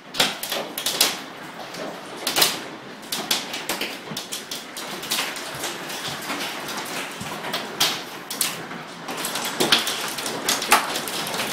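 Hailstones pelting the house's windows and roof: a dense, irregular clatter of sharp hits over a steady hiss, with a few louder strikes, heard through the glass.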